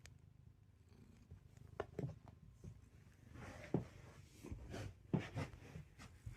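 Calico cat purring, a low continuous rumble, with scattered soft clicks and rustles on top.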